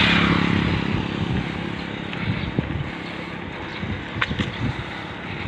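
Wind rushing over the microphone over the steady hum of a small vehicle engine while riding along, loudest at the start and easing off.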